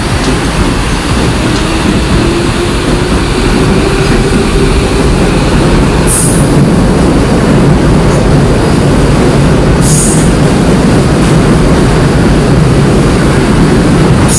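Electric commuter train pulling into a station platform: a loud steady rumble of wheels and running gear, with a tone that rises in pitch over the first few seconds. Two brief high hisses come about six and ten seconds in.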